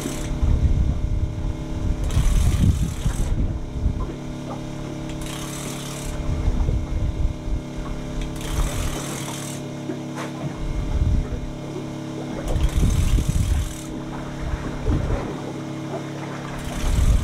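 Boat engine running with a steady low hum, while wind buffets the microphone in rushing gusts every few seconds.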